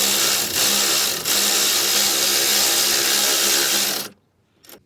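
A power tool's motor whirring steadily as it drives a 12mm bolt through a socket and wobble adapter, tightening the adjuster that tensions the alternator and water pump belt. It dips briefly twice, then stops abruptly about four seconds in.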